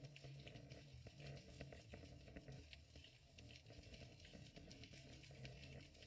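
Near silence: faint underwater noise with many scattered small clicks and crackles, picked up by a GoPro inside its waterproof housing below the surface.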